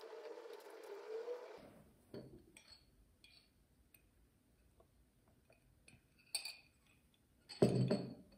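Glass and small objects set down on a desk: scattered light clicks, a sharper glassy clink about six seconds in, and a louder clunk with a brief glassy ring near the end.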